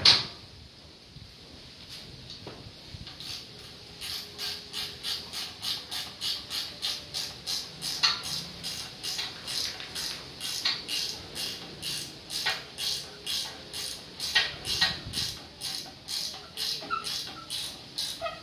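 Ratchet wrench worked back and forth in quick, even strokes, about three a second, starting about four seconds in: a bolt being run in while a gearbox is fitted.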